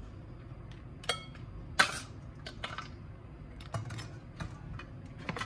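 A metal spoon clinks and scrapes against glass bowls while serving fried bread cubes, fries and boiled macaroni into a glass bowl. There are several sharp clinks, the loudest about two seconds in.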